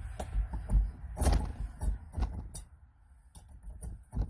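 Irregular clanks, knocks and rattles of metal wheel parts being handled, with a brief quiet pause about three seconds in.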